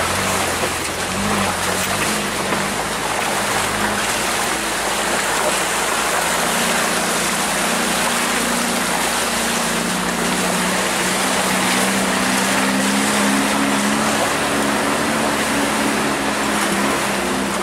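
Truck engine pulling at low speed up a rocky off-road trail, heard from inside the cab, under a steady rushing noise. The engine note rises about six seconds in and holds there.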